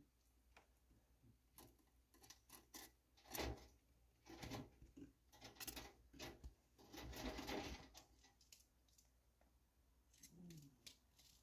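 Faint scratching and clicking of a chipmunk's claws moving about on a wire-mesh cage floor, in short scattered bursts, with a longer rustle about seven seconds in.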